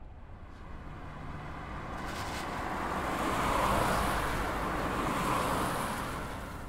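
Road vehicle on a wet street: the hiss of tyres and engine swells to a peak a few seconds in, then fades away.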